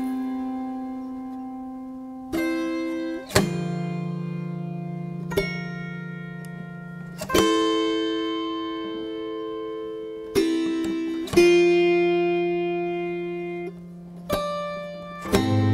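Background music: slow, sustained chords on a plucked string instrument, each struck sharply and left to ring out before the next, a few seconds apart.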